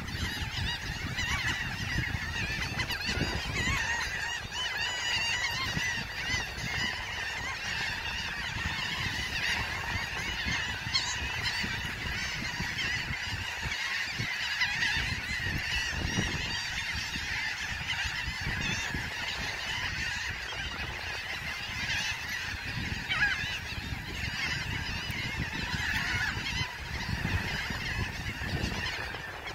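A large flock of gulls calling continuously, many overlapping squawks and cries, over a low wind rumble on the microphone.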